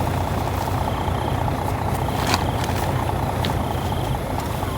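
Rice combine harvester's engine running steadily with a low rumble, and a sharp click a little over two seconds in.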